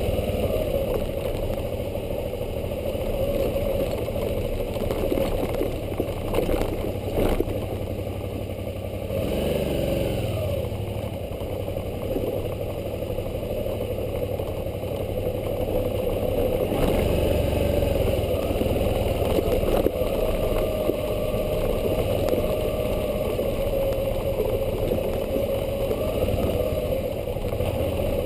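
Suzuki V-Strom 650's V-twin engine running steadily as the motorcycle is ridden over a dirt trail. A few sharp knocks and rattles from the bike come around six to seven seconds in, and the engine note bends down and up around ten seconds in.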